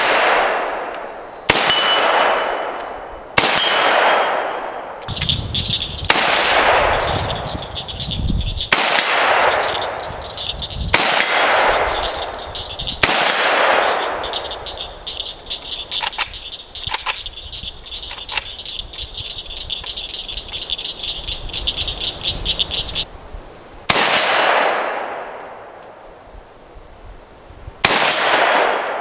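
Semi-automatic AK-47 rifle in 7.62x39 fired in slow single shots, about a dozen in all, each crack followed by a long echoing tail, with a pause of several seconds after the first two-thirds. A steady high tone runs through the middle stretch.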